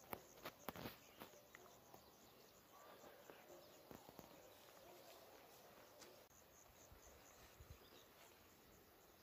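Near silence: faint open-field ambience with insects chirping softly at a high pitch and a few soft clicks in the first second.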